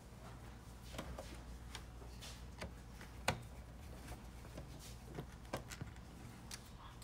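Scattered light clicks and taps of hands handling the printhead assembly and screws inside an opened Epson 8550 printer during reassembly, with one sharper click about three seconds in.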